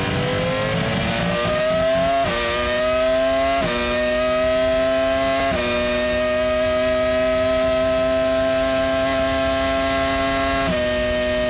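Cosworth V10 of a 2006 Toro Rosso Formula 1 car heard from onboard, accelerating hard. The pitch climbs and drops sharply at quick upshifts about two, three and a half and five and a half seconds in, then holds high and nearly steady along the straight, with one more upshift near the end. The engine is held to a 16,500 rpm rev limit.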